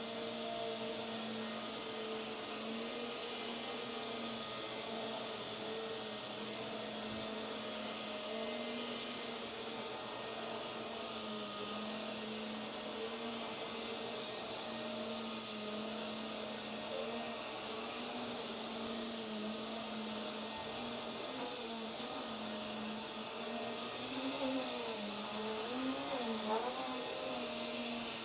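Hoover WindTunnel Tangle Guard upright vacuum running on carpet: a steady motor hum with a thin high whine above it. Near the end the pitch wavers up and down several times.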